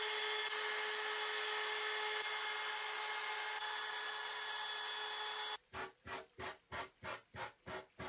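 Compact trim router running steadily as it trims the veneer overhang along a veneered edge, cutting off suddenly about five and a half seconds in. Then hand-sanding strokes with a sanding block along the veneered edge, about two and a half strokes a second.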